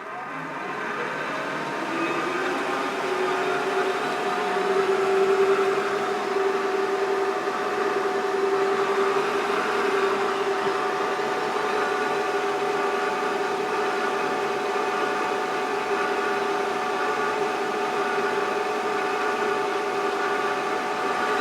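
Creworks 8x16 mini metal lathe running with its gear cover off, spindle motor and freshly chain-lubricated change gears whirring. It speeds up over the first few seconds, then holds a steady whine.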